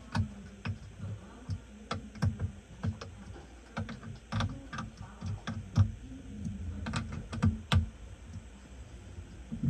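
Irregular sharp clicks and light knocks, about one or two a second, with uneven spacing.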